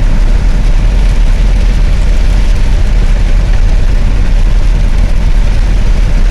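Steady low rumble of a vehicle driving on a wet road in rain, engine and tyre noise mixed together.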